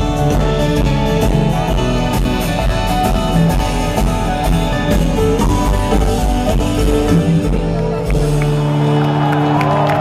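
Live band with acoustic guitar and drums playing the closing bars of a song, recorded from within the crowd. About eight seconds in the bass and drums drop away and a final chord rings on while the crowd starts to cheer.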